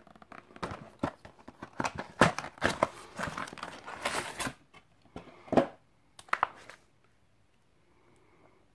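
A cardboard ready-meal carton being torn open and its plastic tray pulled out: a few seconds of dense tearing and crinkling cardboard, then a couple of sharper knocks as the tray is handled.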